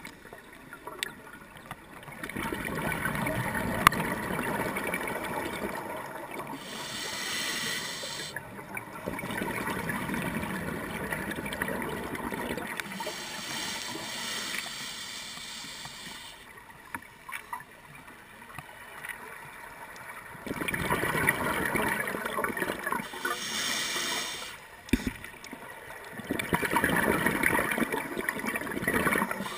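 Scuba diver's breathing through a regulator, heard underwater: stretches of exhaled bubbles rushing and gurgling, several seconds long, coming back roughly every six or seven seconds with quieter gaps between.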